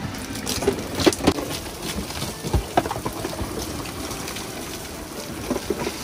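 Soapy water spraying, splashing and sloshing inside a homemade drill-driven rotating drum bike wash as it spins, with several sharp knocks and splats in the first three seconds.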